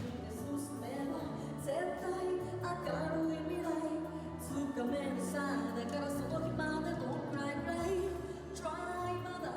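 Music: a song with a singing lead voice over a steady bass and accompaniment.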